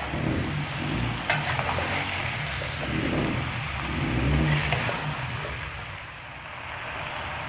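Metal spatula stirring chopped young jackfruit in a wok, the vegetables shifting and scraping against the pan, over a steady frying hiss with uneven low rumbles.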